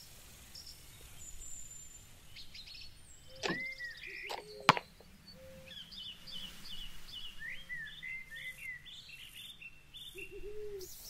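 Small birds chirping and singing, with a low call repeated about five times at even spacing in the second half. A single sharp click or knock about four and a half seconds in.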